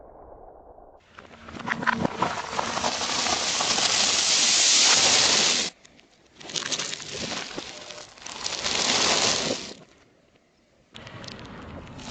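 Car tyre rolling over and crushing crunchy objects: dense crackling and crunching with sharp cracks. It comes in three separate stretches that start and stop abruptly, with a short quiet gap after the first and a longer one after the second.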